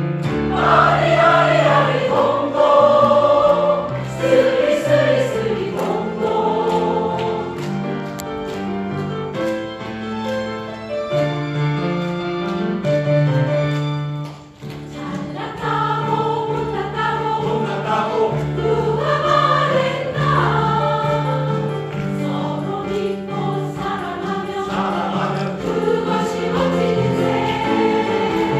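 Choir singing a slow piece in sustained, held notes, with a brief drop in loudness about halfway through.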